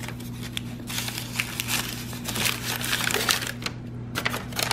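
Packing paper crinkling and rustling as it is unwrapped by hand, in bursts of crackle starting about a second in, with a brief lull near the end.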